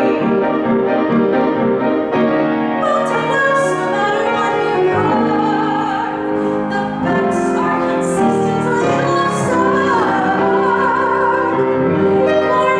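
A woman singing a classical art song in a trained, operatic voice with piano accompaniment, holding notes with vibrato in the second half.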